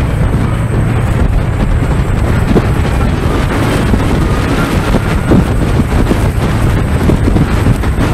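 Loud, steady wind on the microphone over the engine and water noise of a fast tour boat, heard from its open deck.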